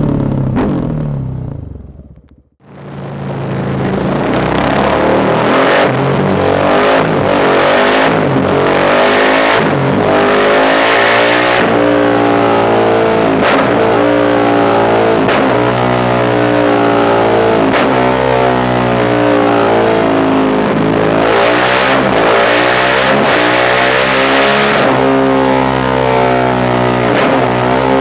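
KTM 690 SMC-R's single-cylinder engine through a Dominator aftermarket exhaust, revving hard again and again, its pitch climbing and breaking off every second or two, with occasional sharp cracks. The sound fades out about two seconds in and comes back.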